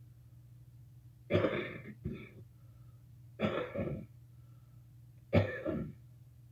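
A person coughing three times, about two seconds apart, each cough followed at once by a shorter second one.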